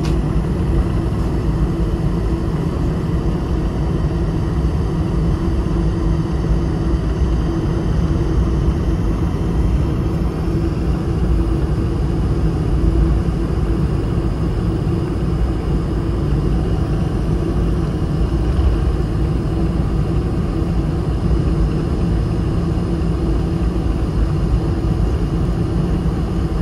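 Cabin noise inside a Boeing 747-400 taxiing: a steady low rumble from the engines at taxi power, with a faint steady hum over it.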